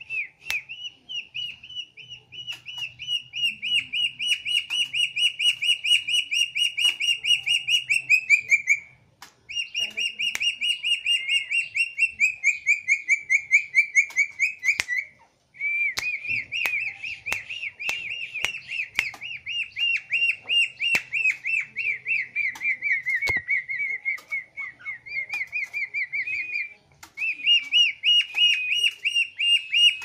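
A songbird calling in long phrases of rapid, repeated high notes, each phrase held at a nearly steady pitch, with short breaks about 9, 15 and 27 seconds in. Faint clicks are scattered through it.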